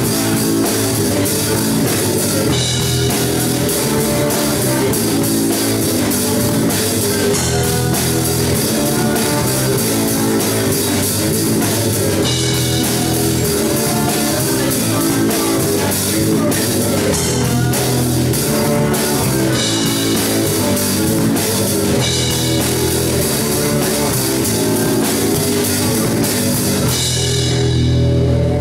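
A live rock band plays: drum kit, electric guitar and bass guitar together, with a steady driving beat. Near the end the drums and cymbals drop out, leaving a held, sustained chord ringing on.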